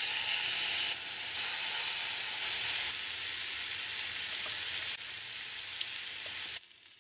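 Pork belly cubes sizzling as they sear in a dry nonstick frying pan, rendering out their own fat. The steady sizzle stops abruptly near the end.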